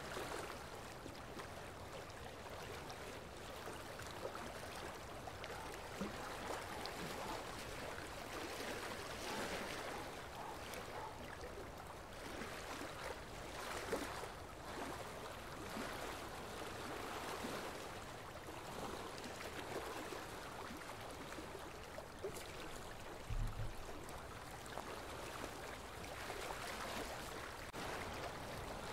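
Background ambience of flowing water: a steady rushing that swells and eases every few seconds, with a brief low thump about two-thirds of the way through.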